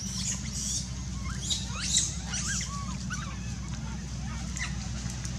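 Infant long-tailed macaques giving a run of short, high-pitched squeals and squeaks, clustered in the first three seconds, over a steady low hum.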